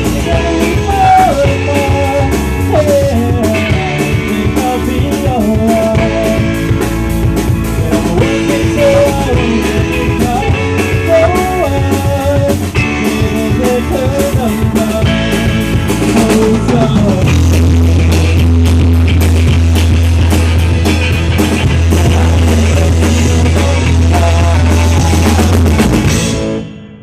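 Rock band playing live with drums, bass and electric guitar under a bending lead melody. About 17 seconds in, it settles on a long held closing chord that stops abruptly near the end.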